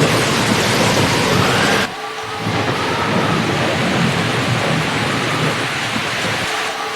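Heavy rain falling steadily, with thunder rumbling underneath. The sound drops abruptly in level about two seconds in, then carries on.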